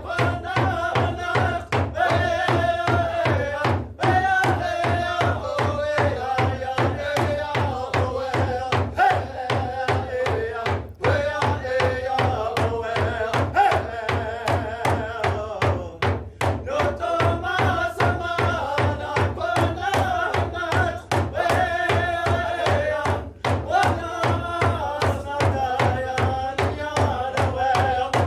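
Several men singing a Native American song together, with voices rising and falling in long phrases over a steady, even beat on a hand-held frame drum.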